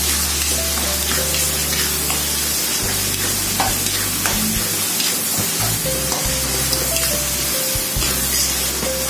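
Chilli and petai sauce sizzling in a wok as a metal spatula stirs it, with scattered short scrapes and knocks of the spatula against the pan.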